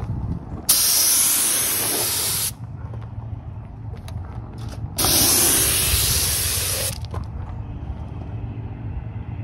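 Compressed-air paint spray gun spraying clear coat in two hissing passes of about two seconds each. Each starts and stops sharply as the trigger is pulled and released.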